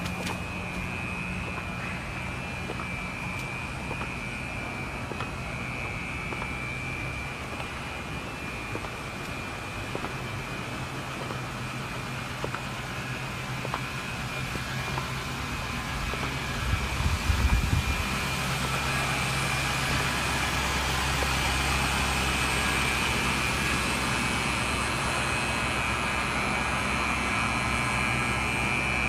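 Motor vehicle engine running with a steady low hum, with a brief low rumble about 17 seconds in. After that a wash of noise grows louder as rain starts falling again.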